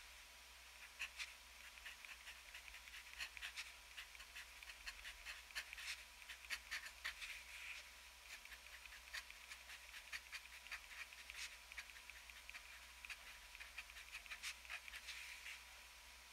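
Extra-fine steel nib of a TWSBI ECO fountain pen scratching across paper in short, irregular strokes and ticks as characters are written. Faint, with a short pause a little past halfway.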